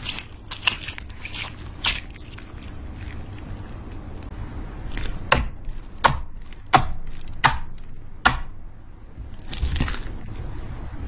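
Glitter slime squeezed and poked by fingers, giving sharp wet pops and clicks. A few come near the start, then about five in quick succession in the second half.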